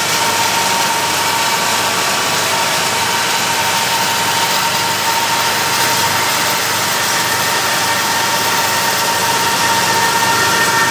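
BNSF diesel locomotives running at speed, heard from a vehicle pacing alongside, their engine sound mixed with road noise from the pacing vehicle. A steady high whine sits over it, and more whine tones join near the end.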